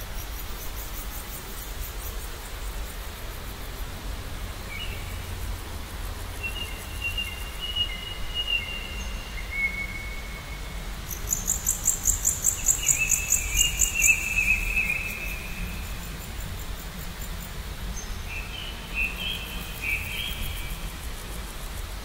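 Birds calling in several long whistled notes, with a fast, high-pitched pulsing trill that is loudest about halfway through. A steady low rumble and hiss lie underneath.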